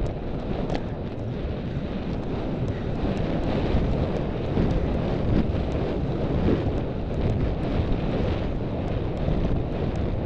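Wind buffeting the microphone of a rider's head-mounted camera as a horse gallops across a cross-country course, a steady rushing roar. Faint hoofbeats come through underneath.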